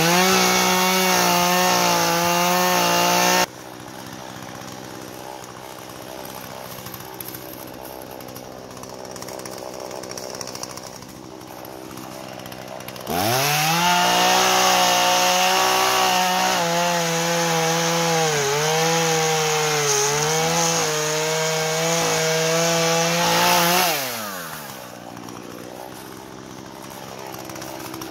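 Two-stroke chainsaw revving to full throttle, then cut off abruptly a few seconds in, followed by a quieter steady stretch. It revs up again and runs flat out with its pitch dipping and wavering as the chain bites into the tree trunk during a felling cut. Near the end it winds down to a lower idle.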